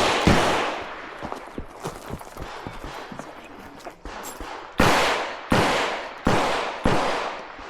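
Handgun shots at a pistol competition: one shot right at the start, then about four seconds later a string of four shots roughly two-thirds of a second apart, each trailing off in echo.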